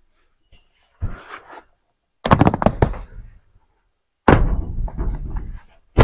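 Woven landscape fabric being pulled off a chicken coop's wire wall, crackling and snapping in three rough bursts: about a second in, just after two seconds, and past four seconds.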